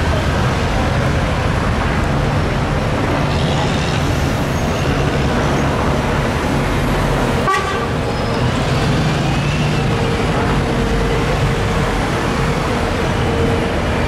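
Busy city road traffic: double-decker buses and cars running past. About halfway through a steady tone, like a held horn, starts and sounds over the traffic to the end.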